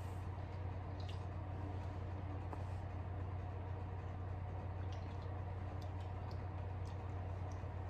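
A steady low hum, with a few faint soft ticks and wet sounds scattered through it as fizzy soda is sipped from a can.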